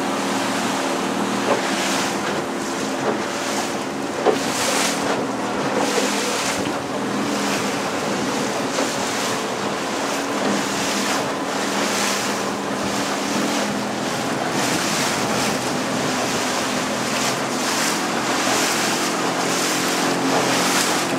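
A small boat's motor running steadily under way, with water rushing and splashing along the hull and wind on the microphone surging every second or two.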